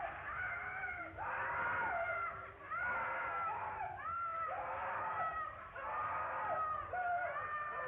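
Several high wailing voices overlapping, each cry wavering and dropping in pitch at its end, starting again about once a second.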